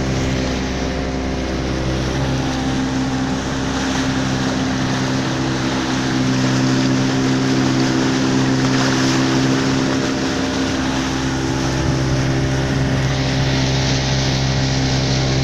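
Fibre speed boat's engine running steadily at speed, its hum holding one even pitch, over the rush and splash of water along the hull, heard from on board.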